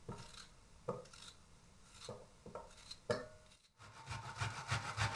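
A kitchen knife cuts green tomatoes, with a few light knocks as pieces drop into an enamel pot. About four seconds in, a frozen lemon is scraped up and down a metal box grater in quick, even strokes.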